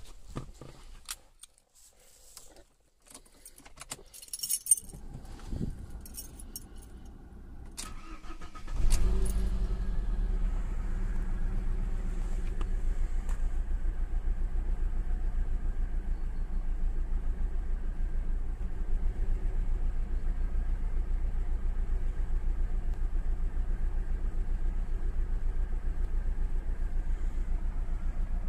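Keys jingling, then the Alfa Romeo 156's 2.0 Twin Spark four-cylinder engine starts about nine seconds in, catching with a brief surge before settling into a steady, even idle.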